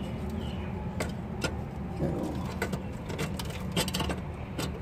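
Sharp metallic clinks and taps as a new catalytic converter's steel pipe knocks against the rusty exhaust pipe and flange while it is worked into place by hand, about a handful of separate clicks. A steady low rumble runs underneath.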